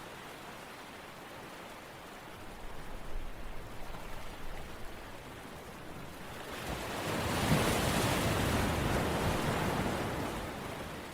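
A steady rain-like hiss of water noise, with a louder rushing swell that builds about six and a half seconds in and fades away near the end.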